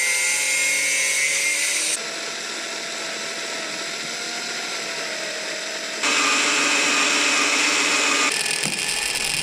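Power drill running steadily as it drills into a seized steel bolt in a motorcycle's rear brake master cylinder. Its whine changes level and pitch abruptly about two seconds in and again about six seconds in.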